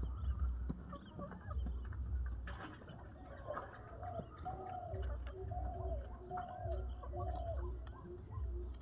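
Domestic pigeon cooing: a run of about five short coos, starting a few seconds in, over an intermittent low rumble and scattered light clicks.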